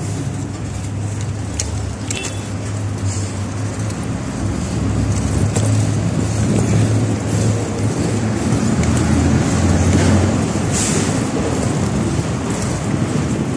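Road traffic noise: motor vehicles running along a city street, a steady low rumble that grows louder about six to ten seconds in.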